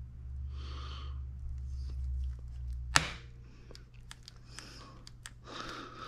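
Large slip-joint pliers working on the timing chain tensioner of a Subaru FA20DIT engine: one sharp metal snap about halfway through, with small tool clicks after it and close breathing near the start and end.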